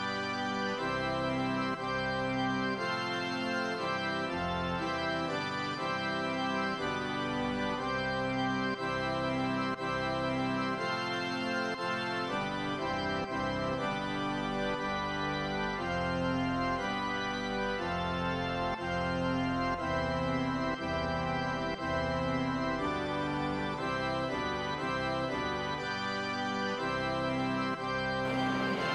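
Organ music: sustained chords that change every second or so. Just before the end, the noise of a train comes in under it.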